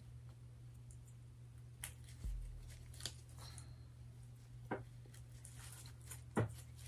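Faint handling noises from decorating a wreath: a few soft clicks and rustles and one low thump, over a steady low hum.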